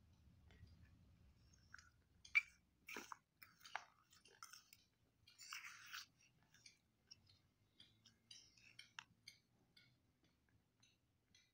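Spoon stirring and scooping a thick wet paste of soaked slate pencil pieces in a stainless steel bowl: faint, irregular squelches and clicks of the spoon against the metal, with a longer scraping squelch about five to six seconds in.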